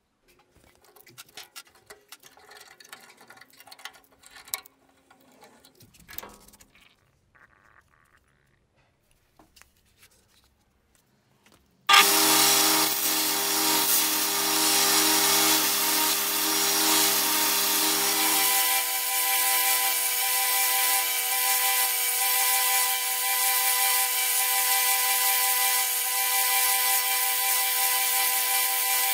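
Belt grinder starts abruptly about twelve seconds in and runs steadily while a wooden knife handle is ground against the belt. Its lower hum drops away about six seconds later. Before it, only faint scattered clicks and knocks of handling.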